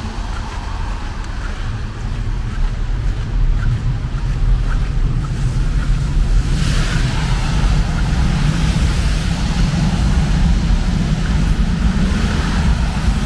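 Road traffic on a wet road, with tyre hiss over a heavy low rumble of wind on the microphone. The hiss swells about six or seven seconds in as vehicles pass close by.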